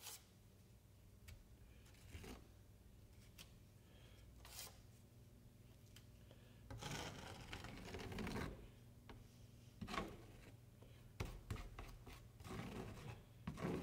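Faint scraping of a drywall taping knife spreading joint compound over a corner bead and working against a metal mud pan, with a few light clicks. The scrapes come mostly in the second half.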